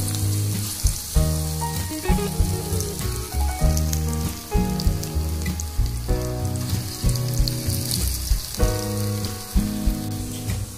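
Hot oil in a kadai sizzling, with scattered sharp crackles, as balls of lentil and prawn-head batter are dropped in to fry as fritters. Background music with held notes plays underneath.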